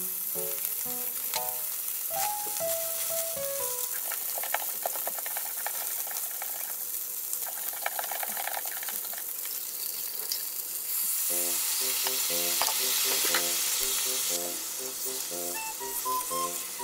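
Mackerel fillets sizzling as they fry in a small stainless square pan, with chopsticks turning them and a spoon stirring in a small steel bowl about halfway through. The sizzling swells louder for a few seconds about two-thirds of the way through.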